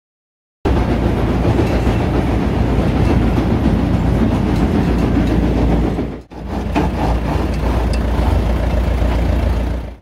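Maxxi HD 85 combine harvester running: a loud, steady machine din with a strong low hum from the engine and belt-driven drives. It cuts in abruptly just after the start and drops out briefly about six seconds in.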